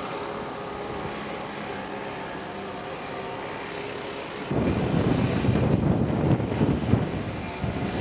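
A steady mechanical hum. About four and a half seconds in, a loud, gusty rumble of wind buffeting the microphone sets in.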